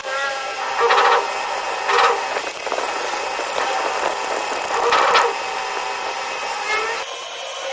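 Grinding machine running while its wheel grinds a steel stopper pin, with a steady hiss and three louder surges about one, two and five seconds in as the wheel bites the work.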